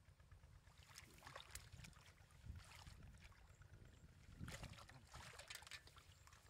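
Faint splashing and sloshing of hands working through shallow muddy water, with louder splashes about two and a half and four and a half seconds in.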